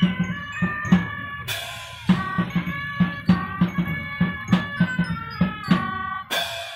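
A Shriners' oriental street band playing: horns hold a tune over a steady bass drum beat, with cymbal crashes about a second and a half in and again near the end.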